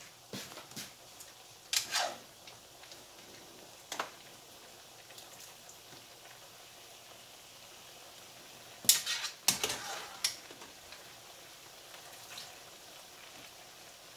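Tomato sauce simmering in a pan, a faint hiss with scattered sharp pops. A loud cluster of clicks and clatter about nine to ten seconds in as a utensil drops more spaghetti into the pan.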